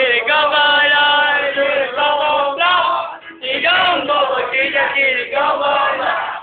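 Male singing in long held notes, with a short break about three seconds in.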